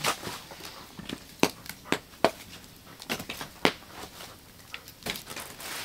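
Small wood fire of dry sticks crackling, with irregular sharp snaps and pops of dry wood, several a second at times.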